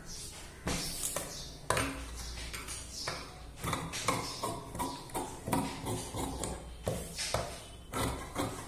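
Large tailor's scissors cutting through blouse fabric on a table: a regular run of sharp snips, about two a second, as the blades close on the cloth.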